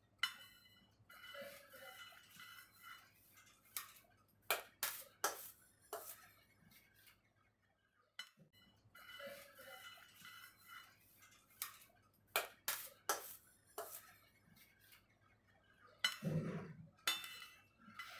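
A metal spatula scraping and tapping against a metal cake turntable while chocolate cream is spread and smoothed on a cake: scattered sharp clinks and knocks between stretches of soft scraping.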